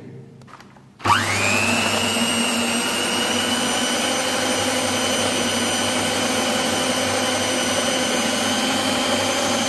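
Electric hand mixer switched on about a second in, its motor whine rising quickly and then running steadily on low speed as the beaters cream butter and powdered sugar.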